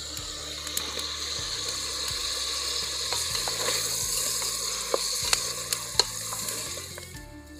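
Chicken pieces sizzling in a little hot oil in an aluminium pot, the sizzle growing louder as the lid comes off at the start. A wooden spatula stirs the meat, with a few sharp taps against the pot around the middle. The sizzle dies down near the end.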